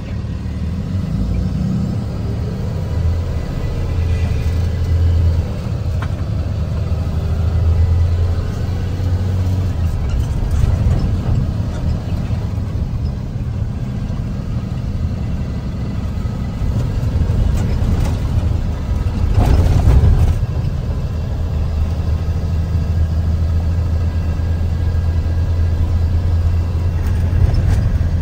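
Vehicle engine running with a steady low rumble, heard from inside the cab. One brief louder noise comes about two-thirds of the way through.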